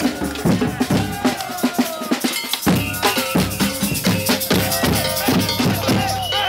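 Rhythmic drumming and percussion beats, several strikes a second, with a short break about two and a half seconds in.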